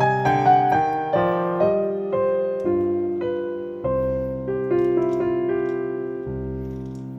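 Background music: an electric piano playing a slow line of single notes, about two a second, over held low notes, slowly fading.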